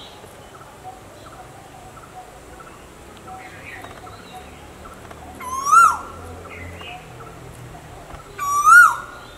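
Asian koel, male, calling twice about three seconds apart. Each call is a single loud whistled note that rises, holds briefly, then drops sharply at the end.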